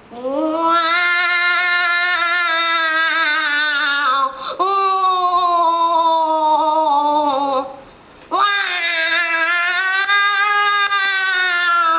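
A single voice singing long held notes in three phrases, each starting with a quick upward slide and then slowly sinking in pitch, with short breaks between them.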